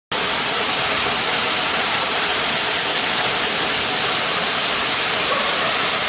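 Waterfall pouring off a rock ledge into a plunge pool: a steady rushing splash of falling water.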